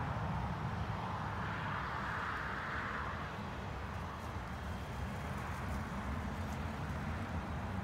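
Subaru Tribeca SUV driving slowly over snow-covered ground, its flat-six engine and tyres making a steady low rumble.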